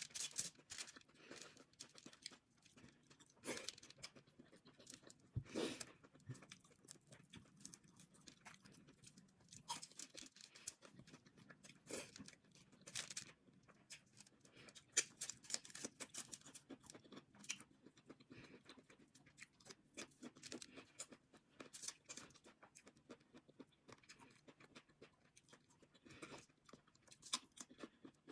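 Close-up eating sounds of a seafood boil: chewing, crunching and tearing, heard as irregular quiet clicks and snaps with a few louder cracks.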